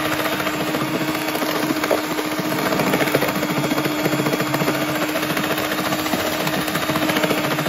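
Bosch electric hand mixer running steadily, its beaters whisking batter in a glass bowl: a constant motor hum with a dense rattling buzz.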